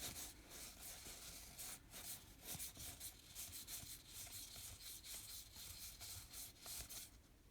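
Faint rubbing and sliding of paper trading cards being leafed through by hand, in small irregular rustles.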